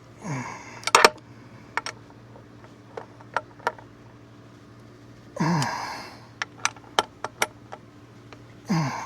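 A man straining while he tightens bolts with a socket wrench: three effortful exhalations, each a falling grunt-like sigh of about half a second, with sharp clicks and knocks of the wrench between them, the loudest a double click about a second in. A steady low hum runs underneath.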